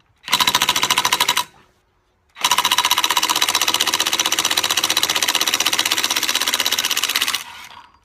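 Impact wrench (rattle gun) hammering on the lawnmower's blade bolt to undo it: a short burst of about a second, a pause, then a long burst of about five seconds.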